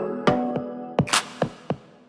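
Background music: electronic track with sustained tones and sharp percussive hits, dying away near the end.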